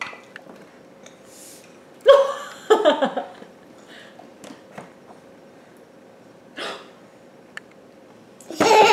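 A small child's short, high-pitched wordless squeals: two quick ones about two seconds in, then a louder, longer squeal falling in pitch near the end, with a short breath between.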